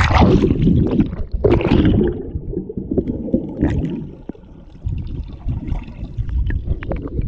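A splash as the camera plunges into a swimming pool, followed by the muffled underwater sound of moving water: a low rumbling gurgle with faint clicks and ticks.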